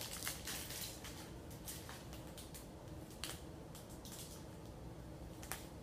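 Faint crinkling and scattered light clicks from a clear plastic bag and a hair bundle being handled while the ribbon tie is taken off the bundle.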